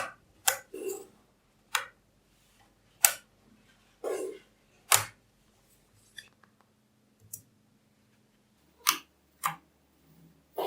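Small magnetic balls snapping together with sharp clicks, about seven of them at irregular intervals, with a couple of short rattles as clusters of balls are handled.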